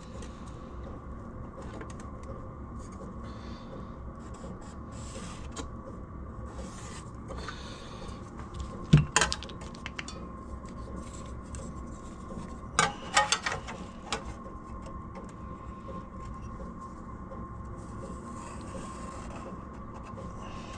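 Lines being drawn on an aluminium sheet while marking out a panel: light scratchy strokes across the metal, with a few sharp knocks, the loudest about nine seconds in.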